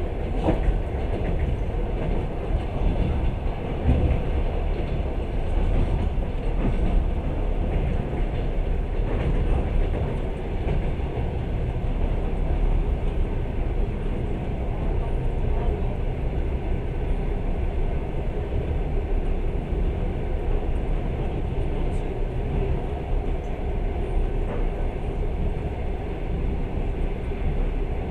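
Passenger train moving along the line, a steady noise of wheels running on the rails heard from on board the carriage.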